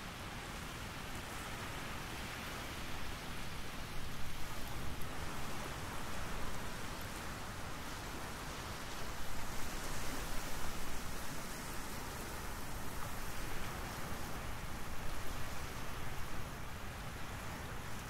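Steady hissing background noise that swells louder in uneven waves from about three seconds in; no hoopoe call stands out.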